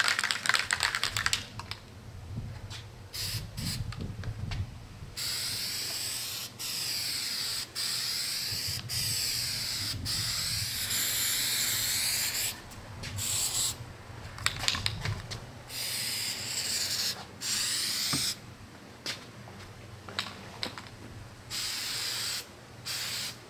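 Aerosol can of Flex Seal liquid rubber spraying onto steel plates in hissing bursts. The longest burst runs about seven seconds in the middle, with several shorter bursts after it. A run of quick clicks comes at the start.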